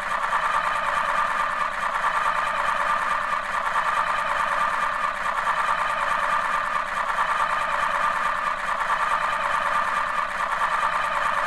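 Alarm buzzer sounding continuously: a steady, rapid, mid-pitched buzz.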